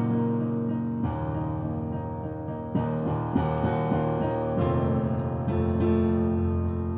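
Improvised keyboard accompaniment for a silent film: held low chords with new notes struck above them every second or so.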